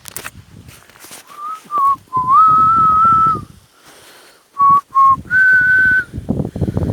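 A person whistling a short phrase of clear notes: a few short ones and two longer held notes, each fairly steady in pitch.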